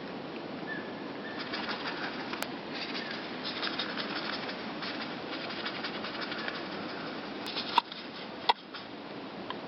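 Great tits and blue tits fluttering their wings: a flurry of rapid wingbeats lasting several seconds, then two sharp clicks near the end that are the loudest sounds.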